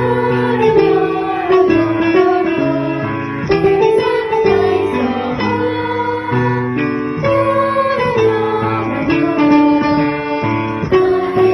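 Children's exercise song: a voice sings the snake verse, 'hebi-san no taisō wa, nyoro nyoro nyororoo' ('the snake's exercise goes wiggle wiggle'), over an instrumental accompaniment.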